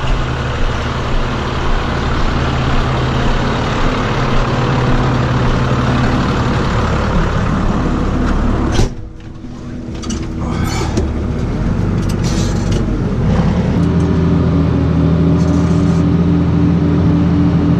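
Tractor diesel engine running steadily. About nine seconds in, a cab door bangs shut and the engine becomes muffled, with a few clicks and knocks. A few seconds later the engine note picks up and holds steady.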